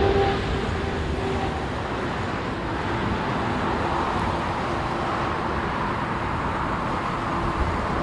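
Jet airliner engines, a steady rushing roar with a faint whine that fades over the first couple of seconds.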